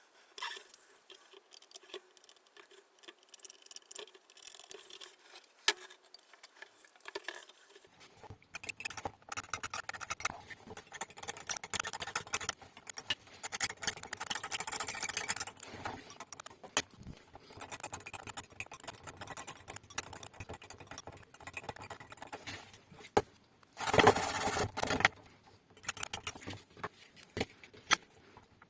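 Small hard objects being handled on a workbench: scattered clicks and scrapes, faint at first, then busier from about eight seconds in, with a louder clattering stretch near the end.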